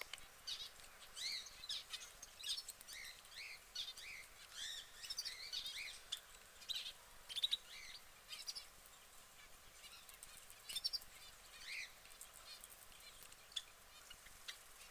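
Canary chirping and twittering: runs of short, quick chirps that come thickly through the first half and more sparsely after, with a few sharp ticks about halfway through.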